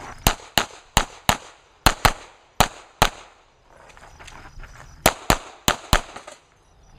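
Pistol shots fired in quick strings, about a dozen sharp cracks at roughly three shots a second, each with a short echo. There is a pause of about two seconds in the middle, then the firing resumes.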